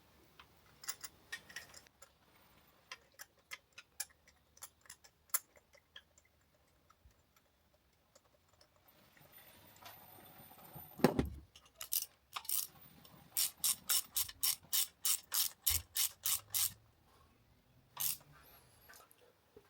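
Ratchet wrench clicking as spark plugs are run into the Mitsubishi Evo X's cylinder head. Scattered clicks come first, then a knock, then an even run of about four clicks a second.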